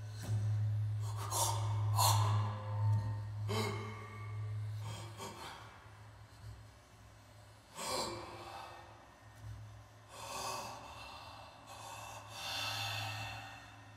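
Double bass played with the bow: a low sustained tone that fades after a few seconds and returns near the end, with soft, noisy bow strokes that rise and fall every second or two.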